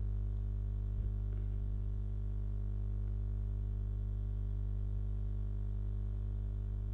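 Steady low electrical hum on the microphone line, with a faint click about a second in.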